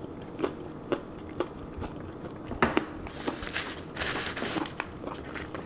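Chewing and crunching of a hard corn taco shell: several sharp crunches in the first three seconds, then a longer stretch of crackling about four seconds in.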